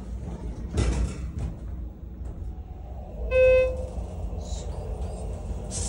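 Inside a Schindler 330A elevator cab: the sliding doors bump shut about a second in, then a single electronic beep, about half a second long, sounds from the elevator's signal.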